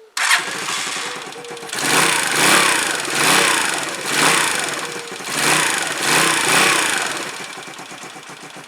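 Zontes motorcycle's engine, its carburettor freshly cleaned and rejetted, running on a bit of choke: the level jumps just after the start, then the revs are blipped up and down about five or six times before easing back toward the end.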